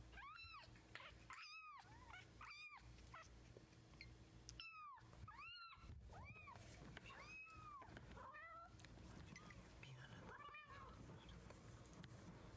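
A young kitten mewing repeatedly: about nine short, high-pitched mews, each rising then falling in pitch, with short pauses between groups. Faint.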